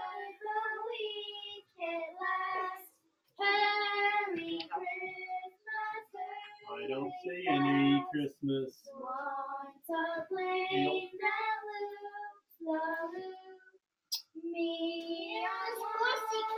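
A girl's voice singing short unaccompanied phrases, with brief breaks between them.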